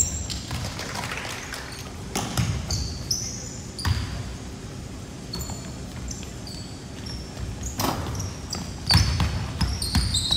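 Basketball being dribbled on a hardwood gym floor: irregular bounces, the loudest about nine seconds in, with short sneaker squeaks from players on the court near the start and near the end, all echoing in a large gym.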